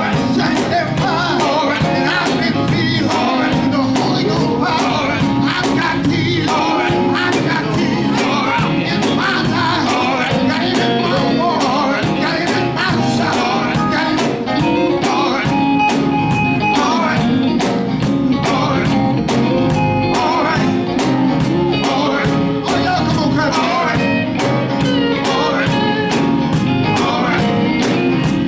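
Live gospel quartet music: voices singing over a band with a steady drum beat.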